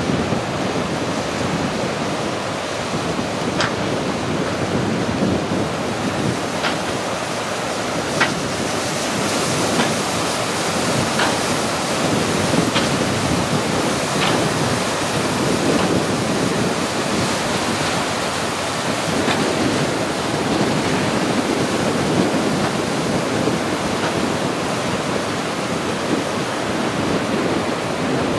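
Heavy storm surf breaking and washing up the beach and around wooden groyne posts: a steady rush of waves and foam, with wind buffeting the microphone.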